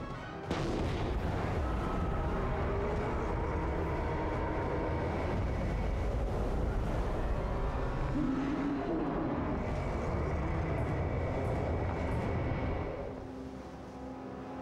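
Film sound effects: a sudden explosion-like blast about half a second in, followed by a long, deep rumble that dies down near the end.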